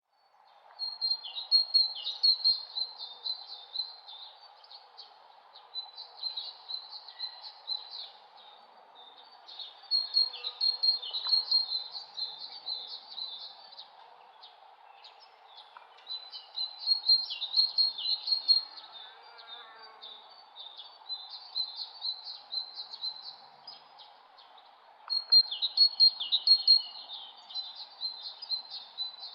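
A songbird singing, with four long phrases of quick high chirping notes spaced about eight seconds apart, over a steady background hiss.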